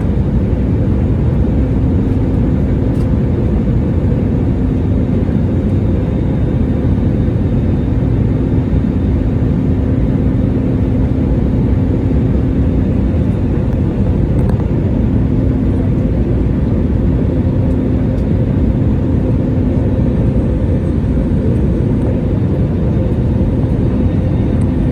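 Airliner in flight on approach: a steady, unbroken rumble of engines and rushing air with a constant low hum, as heard from the passenger cabin.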